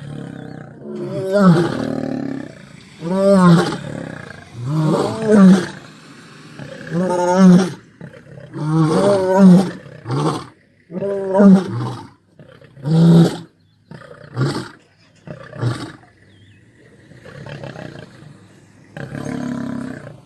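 Male lions giving loud roaring, growling calls at each other in a territorial standoff: a run of calls about every two seconds, shorter and quieter after the first two-thirds.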